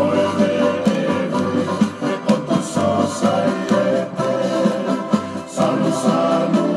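Music: a group of voices singing together, choir-style, with short percussive taps marking a beat.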